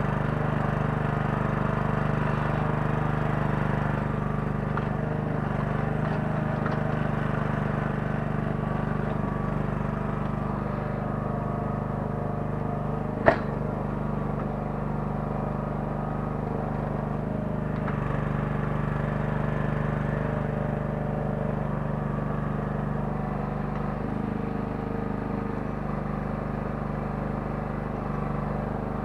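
Small 9 hp engine of a towable mini excavator running steadily while it digs, with one sharp knock about halfway through.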